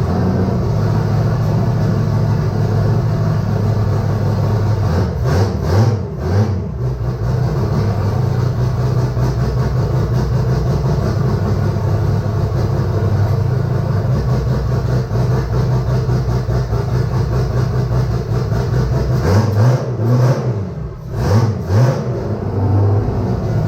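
Newly built Nissan RB30ET turbocharged straight-six running at a steady idle, blipped twice with a rise and fall in revs, about five seconds in and again near the end.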